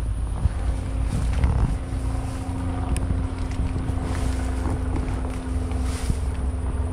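Wind buffeting the microphone, heard as a steady low rumble, with a faint steady hum underneath.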